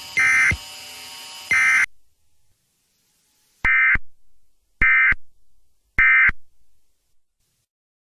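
Emergency Alert System SAME digital data bursts, the end-of-message code, as short raspy warbling tones about a third of a second each. There are five in all: two in the first two seconds over a faint steady hum, then three about a second apart, each trailed by a fainter fading echo.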